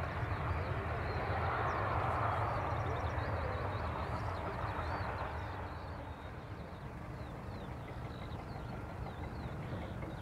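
Jet engines of a Boeing 747-400 taxiing, a steady rumble and hiss that swells about two seconds in and eases off after about five seconds. Small birds chirp throughout.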